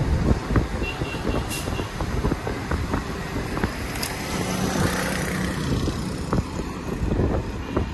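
Steady road and wind noise from a moving car, with small bumps and a brief low hum about halfway through.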